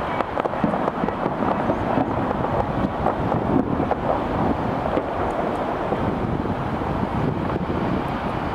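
Steady wind rumbling on the microphone, with faint scattered pops of distant fireworks.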